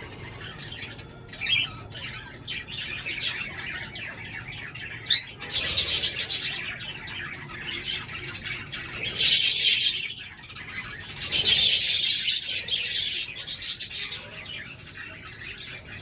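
Cockatiels squawking and chirping, with three louder bouts of harsh calls about five, nine and eleven seconds in.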